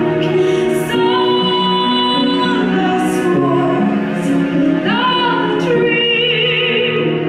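Symphonic metal band playing live. The female lead vocalist sings long held notes with vibrato over sustained backing chords.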